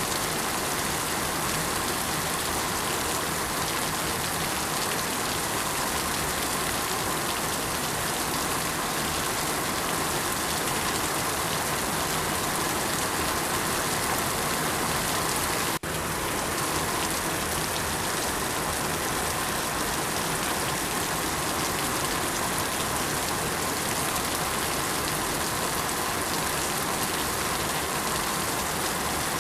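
Steady rain falling, an even dense patter, with a momentary dropout in the sound about halfway through.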